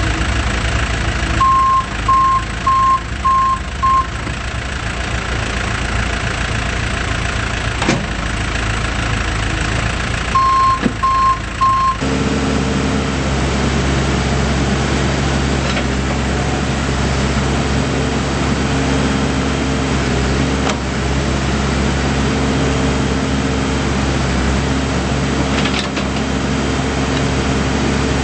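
Case 580M Series 2 backhoe loader's diesel engine running steadily, with its reverse alarm beeping: five quick beeps, then three more several seconds later. About twelve seconds in, the engine picks up speed and holds the higher note.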